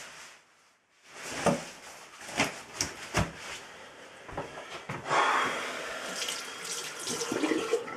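Bathroom tap turned on about a second in, water running into the sink with repeated splashes as it is scooped up in the hands to wash a face.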